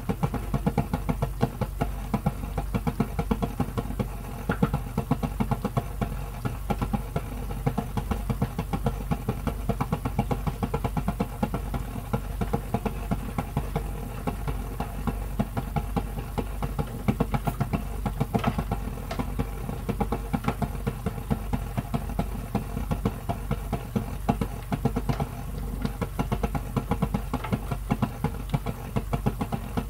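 Thick sweet-and-sour pork sauce simmering in a frying pan, bubbling and popping steadily in quick succession.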